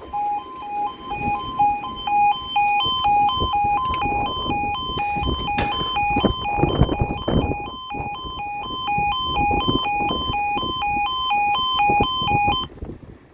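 Level crossing warning alarm sounding: a two-tone electronic yodel alternating steadily between two pitches about twice a second, then cutting off suddenly near the end. Gusty wind buffets the microphone underneath.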